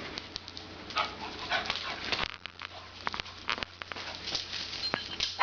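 Dogs moving about and panting, with many scattered clicks and short scuffling noises.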